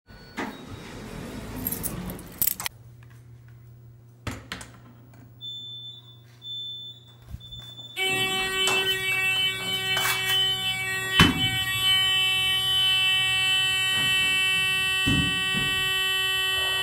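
Elevator fire service alarm buzzer sounding loud and continuous from about eight seconds in, the audible signal of the elevator going into firefighters' emergency recall. Before it starts there is only a low hum, a few clicks and a brief high beep, and a few knocks sound over the buzzer.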